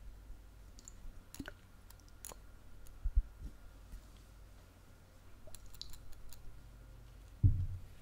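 ASMR scratching sounds: scattered light clicks and scratches, with soft low knocks about three seconds in and a louder low thump near the end.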